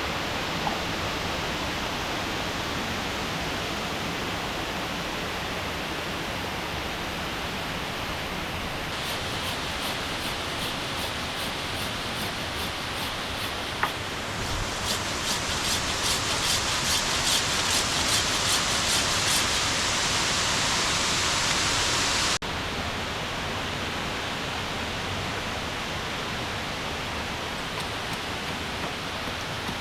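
Waterfall and rapids rushing steadily. From about a third of the way in, a rhythmic high rasping of a few strokes a second joins it, growing louder before it cuts off suddenly about two-thirds of the way through.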